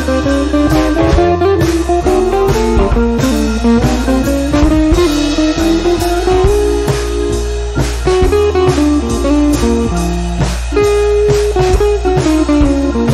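Background instrumental music with a steady beat, a bass line and a moving melody over it.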